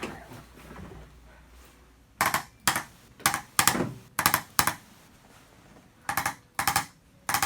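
Handheld percussion massager buzzing against the back in about ten short bursts, each a fraction of a second long, starting about two seconds in, with a pause of about a second and a half in the middle.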